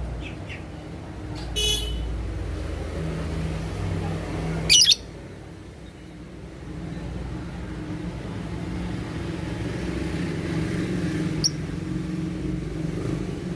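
Steady low rumble of road traffic, with a few short, sharp high-pitched sounds over it. The loudest of these comes about five seconds in.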